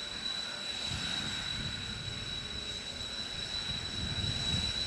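Kawasaki T-4 jet trainer's twin turbofan engines idling on the ground with a steady high-pitched whine, under gusty wind rumble on the microphone.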